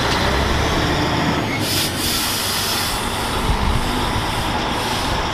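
Tanker semi-truck's diesel engine running with a low rumble as the rig pulls through a turn, under a steady loud rushing noise. It cuts off abruptly at the end.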